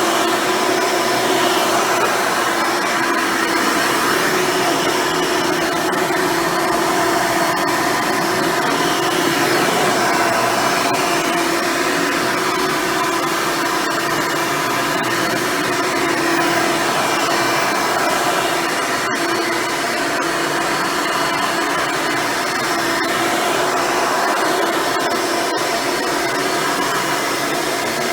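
Hoover Elite upright vacuum cleaner with a dual-row brush roll, running steadily: a constant motor tone over the rush of air.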